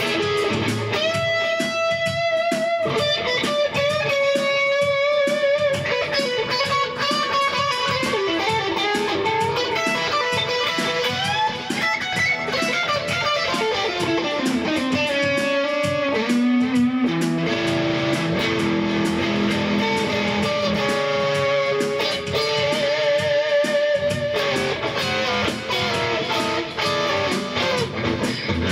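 Electric guitar playing a rock lead melody in long held notes with vibrato and string bends.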